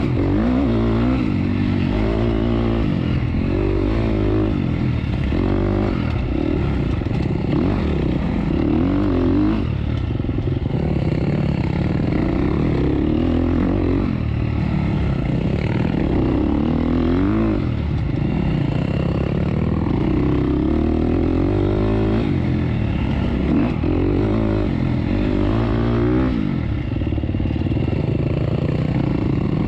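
Off-road dirt bike engine ridden hard, revving up and dropping back over and over as the throttle is opened and closed every second or two.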